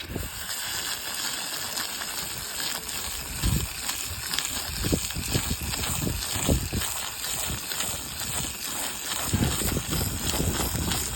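Steady hiss of water spraying from a hose at low pressure, rinsing loosened mold off a shingle roof, with irregular low rumbles of wind on the microphone.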